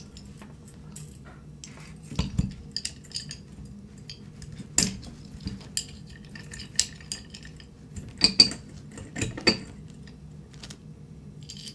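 Scattered small metallic clicks and clinks of Colt 1911 pistol parts (slide, barrel, recoil spring and guide rod) being handled and fitted together during reassembly. There is a dull knock about two seconds in, and the sharpest clicks come in the second half.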